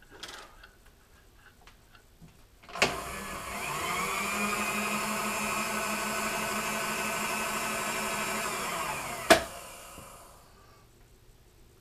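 Milling machine motor switched on with a click about three seconds in, spinning up to a steady whine and running for about six seconds, then switched off with a sharp click and winding down.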